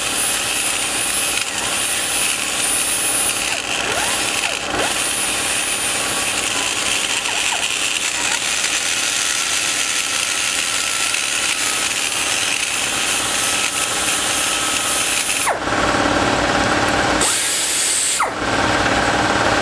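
Die grinder spinning a burr against aluminum, grinding the exhaust port and valve guide boss of an aluminum small-block Chevy cylinder head. A steady, hissing grind, whose sound changes near the end.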